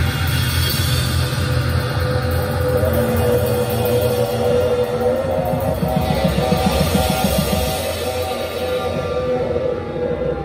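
Live rock band playing: drum kit, electric guitar and keyboard over a heavy bass, with a long held note through the middle. The top end thins out near the end.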